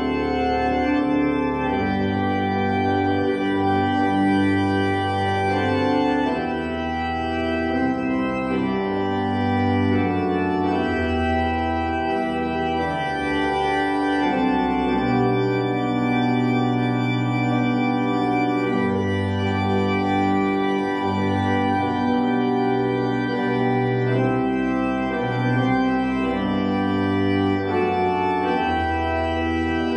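Church organ playing slow, held chords that change every second or two over a sustained bass line, at an even level.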